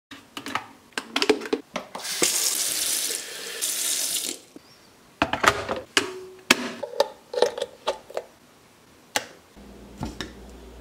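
Electric kettle being filled at a kitchen tap: about two seconds of running water, with clicks and knocks from handling the kettle and its lid before and after. A low steady hum starts near the end.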